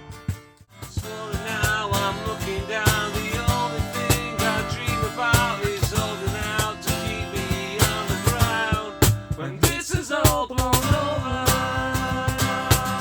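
A rock song with guitar, drums and a sung melody; it breaks off for a moment about half a second in, then plays on.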